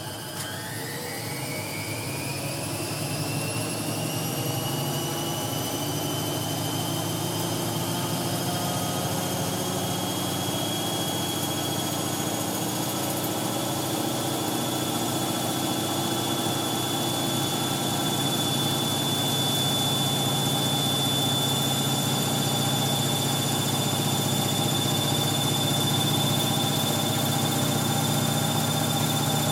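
Hoover 1100 de luxe washing machine spinning up: the motor's whine rises in pitch over the first few seconds as the drum gathers speed, then holds steady at high spin speed with a low drum hum, growing a little louder.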